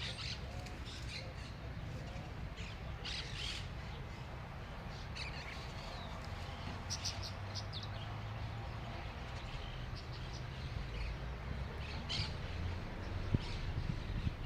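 Birds calling outdoors with short, scattered chirps and squawks over a steady low rumble, with a soft knock near the end.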